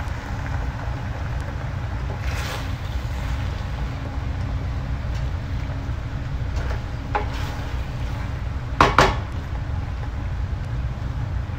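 Wooden spoon stirring penne and meat sauce in a frying pan, with a few scrapes and knocks against the pan, the loudest a quick double one about nine seconds in, over a steady low rumble.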